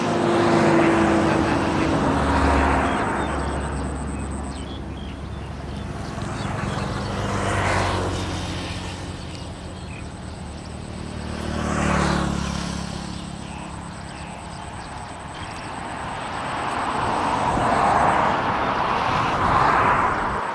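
A low engine hum, steady through most of the first two-thirds, under a broad rushing noise that swells and fades several times.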